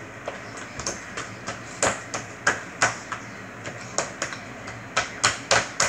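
Slime being squeezed and kneaded by hand on a tabletop, giving irregular sharp clicks and snaps, more frequent and louder in the second half.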